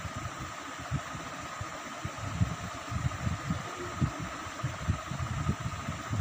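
Soft, irregular low thumps of hands and a plastic ruler being shifted on paper on a desk, over a steady background hum with a faint high tone.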